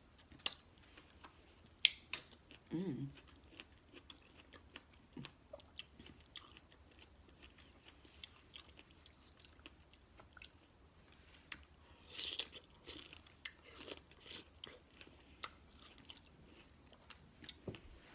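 Close-up mouth sounds of strawberries with vanilla yogurt being chewed: wet smacking clicks and bites coming irregularly, busiest about twelve seconds in, with a hummed "mmm" of enjoyment near the start.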